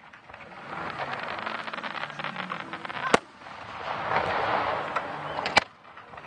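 Aerial fireworks bursting: a dense crackling of many small reports, with a sharp bang about three seconds in and another near the end.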